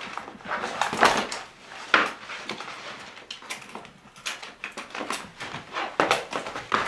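A ring binder and papers handled on a wooden tabletop: irregular knocks and clicks with paper rustling, the sharpest knocks about one and two seconds in.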